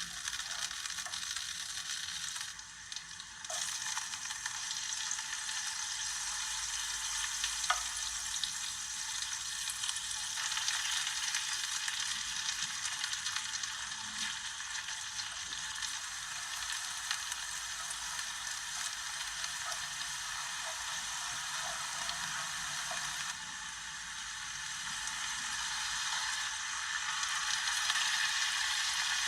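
Food sizzling steadily in a frying pan, with a few faint clicks of a utensil stirring against the pan.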